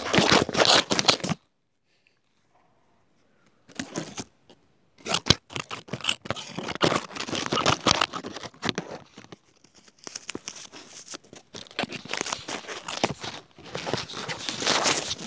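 Close crackling and rustling handling noise, as of something crinkled or scratched right at the microphone. It comes in irregular bursts, with a gap of about two seconds near the start.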